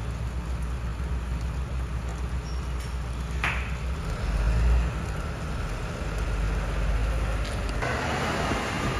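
MAN rear-loader garbage compactor truck's diesel engine running with a steady low rumble as the truck pulls slowly away, with one sharp click about three and a half seconds in and a brighter hiss joining near the end.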